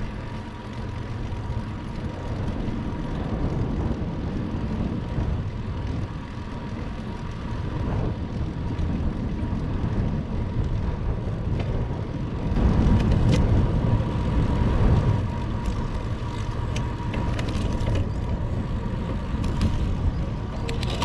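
Wind rumbling on the microphone of a moving bicycle's camera, with road noise beneath it and a few faint clicks. The rumble grows louder for a couple of seconds about halfway through.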